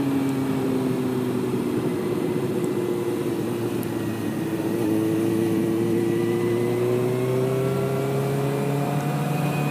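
Sport motorcycle engine running while riding, with wind rush on the helmet microphone. The engine note sags slightly, then rises steadily through the second half as the bike accelerates.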